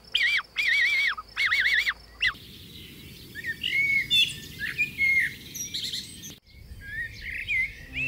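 A wooden blackbird call whistle blown in short, regular warbling phrases. About two seconds in, a Eurasian blackbird sings back with varied fluting phrases, answering the whistle.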